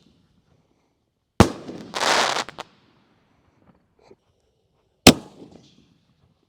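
Aerial canister firework shells fired from mortar tubes: two sharp booms about three and a half seconds apart, with a loud half-second hissing rush shortly after the first.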